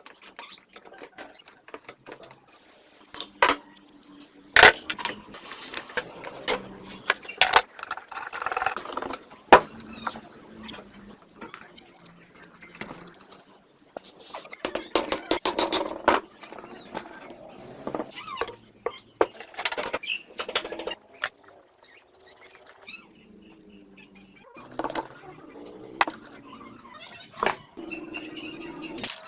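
Metal parts and hand tools clinking, knocking and scraping in irregular strokes, as in dismantling or cleaning motorcycle parts.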